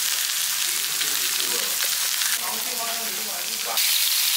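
Pork belly sizzling on a Korean barbecue grill: a steady hiss of meat and fat frying, with faint voices behind it. The sizzle gets louder near the end.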